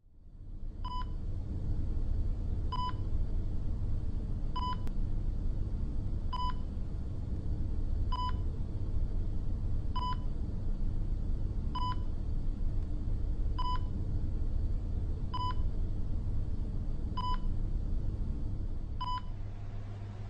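A short, high-pitched electronic beep repeating evenly about every two seconds, eleven times, over a steady low rumble.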